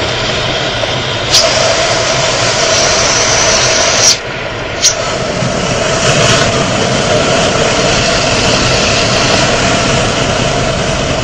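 Car driving at high speed: steady engine and wind noise, with a few sharp clicks just over a second in, about four seconds in and about five seconds in.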